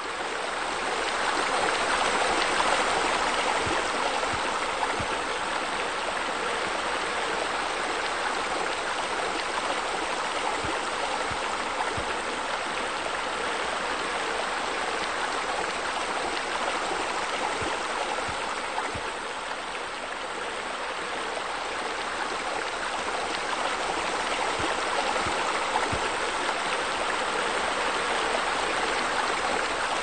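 Steady rushing and splashing of water falling over rocks, as from a small garden waterfall. It swells up over the first couple of seconds and dips slightly about two-thirds of the way through.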